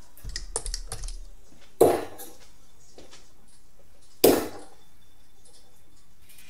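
A quick run of small clicks, a score being keyed into a computer, followed by two separate sharp knocks with a short ring, about two and a half seconds apart.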